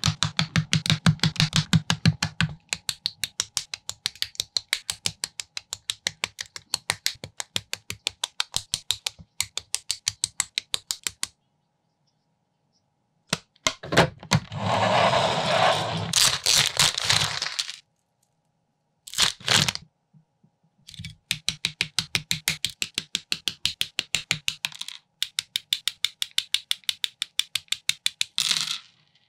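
Plastic building bricks clicking and snapping together in a fast, even run of sharp clicks, several a second, sped up for a speed build. The run breaks off abruptly a few times, and around the middle there are a few seconds of rattling through loose bricks.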